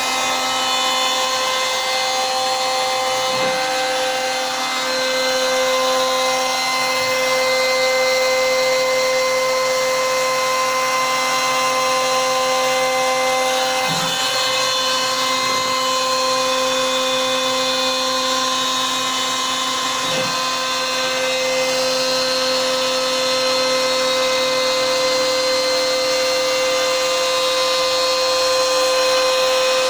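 CNC router cutting MDF: the spindle runs with a steady whine over a noisy rush, with brief small changes in the sound a few times.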